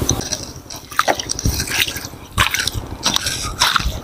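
Shallow muddy water splashing and dripping in irregular scoops as a person bails it out of a flooded field with his bare hands, flinging it aside.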